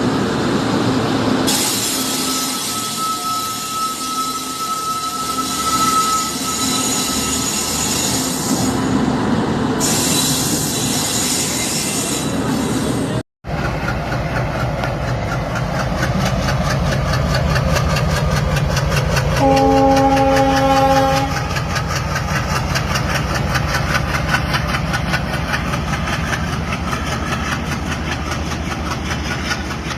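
Indian train running on the track, its rumble joined by a thin high squeal of wheels for a few seconds. After a brief break, the wheels clatter over rail joints in a fast, even rhythm. About twenty seconds in, the train horn sounds once for about two seconds.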